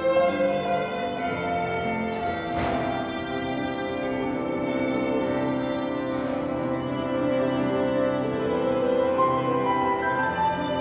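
Violin playing held, bowed notes in a slow classical piece, with piano accompaniment.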